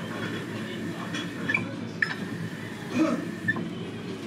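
Restaurant background: a steady low hum of the room with a few light, short clinks of tableware.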